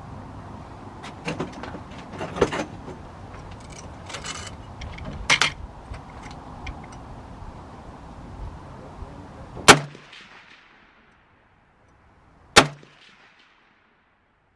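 A few sharp knocks and clicks over a steady background, then two loud shots from an AK-pattern rifle about three seconds apart, each with a short ringing tail.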